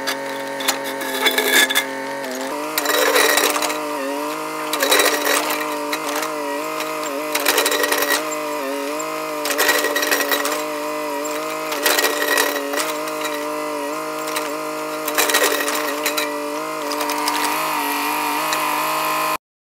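Yanmar mini excavator's diesel engine running steadily, its pitch sagging and recovering again and again as the hydraulics take load while the bucket digs a trench through turf. Short bursts of scraping noise come about every two seconds as the bucket bites into the soil, and the sound cuts off suddenly near the end.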